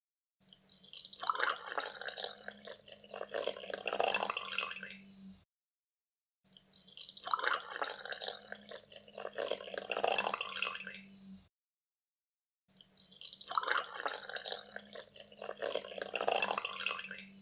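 Coffee being poured, heard as three identical pours of about five seconds each, separated by about a second of silence.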